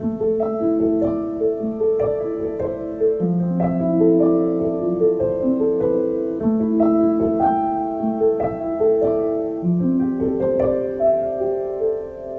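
Instrumental keyboard music: a melody of held, overlapping notes, easing off slightly near the end.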